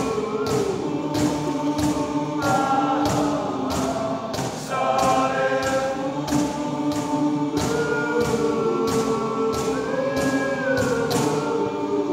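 A men's choir singing a cappella in close harmony, holding long chords that change every few seconds, over a steady percussive beat of about two to three strokes a second.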